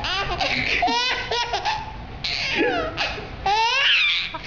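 A baby laughing hard in several high-pitched fits, each a quick string of laugh pulses.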